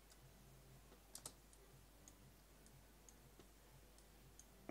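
Faint computer mouse clicks over near silence: two clicks close together about a second in, then a few fainter ticks.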